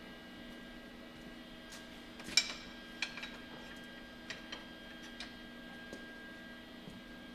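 Metal clanks and clinks as bars and handles are set into a steel shop cart hung with chains: one sharp clank about two and a half seconds in, then several lighter clinks. A steady electrical hum runs underneath.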